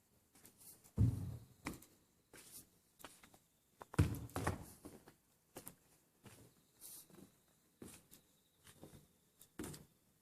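Irregular clicks and light taps of objects being handled in a small room, with two louder dull thumps about a second in and about four seconds in.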